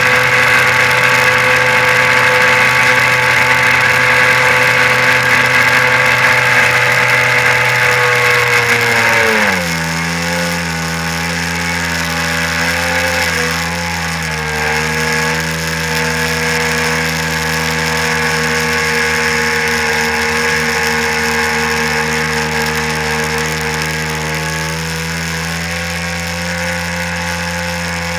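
A 1997 Sea-Doo SPX personal watercraft's two-stroke engine running hard while towing, over the rush of wake water. About ten seconds in, the engine note drops sharply and the sound gets quieter, then it holds steady at the lower pitch.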